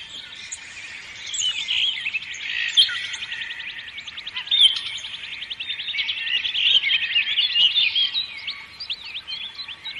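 Several songbirds chirping and singing over one another, with a fast trill of repeated notes about three seconds in.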